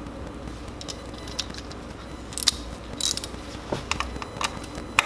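Irregular short metallic clicks and taps of hand tools being worked on engine parts while a spark plug and its coil are refitted, over a low steady hum.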